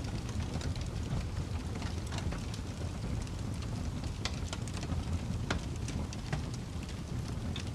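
Wood fire burning in a fireplace: a steady low roar with many scattered crackles, and a few sharper pops past the middle.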